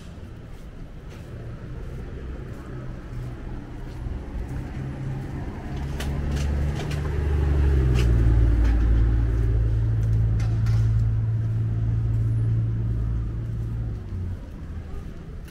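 Low engine hum of a motor vehicle close by, growing louder about five seconds in, dipping slightly in pitch, and fading away near the end, over steady street background noise.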